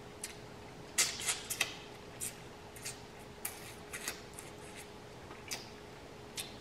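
Eating sounds: a boiled shrimp being peeled by hand and bitten and chewed, heard as a scatter of short sharp clicks and smacks, about ten in all.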